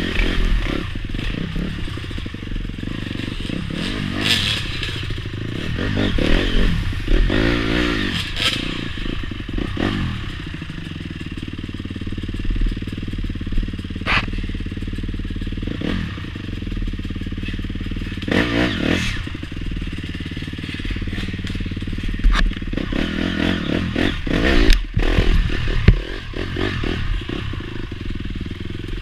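Honda CRF four-stroke dirt bike engine heard from on board, revving up and down repeatedly as the bike is ridden. Clattering knocks from the bike jolting over rough ground come every few seconds, with the sharpest near the end.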